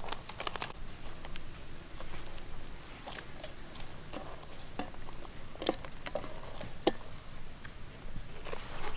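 Faint, scattered small wet clicks and patter as a chicken drumstick is dipped and turned by hand in a stainless steel bowl of beaten egg.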